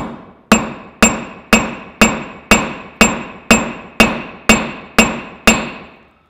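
Hand hammer striking a hot bolt head held in tongs on a steel anvil, about twelve evenly paced blows, two a second, each ringing briefly. The work is forging the corners of a hex bolt head flat to make it square.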